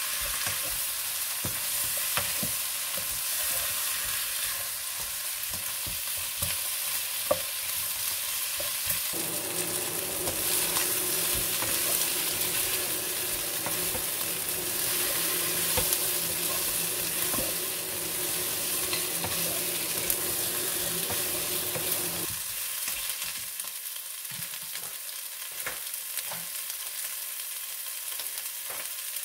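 Chicken pieces with onion and ginger sizzling as they sauté in a nonstick wok, while a spatula stirs and turns them with frequent light scrapes and taps against the pan.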